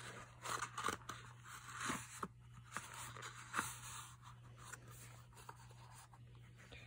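Paper packaging rustling and scraping as fabric resistance bands are slid out of a cardboard sleeve and handled, in a run of short crinkles over the first four seconds or so, then only faint handling.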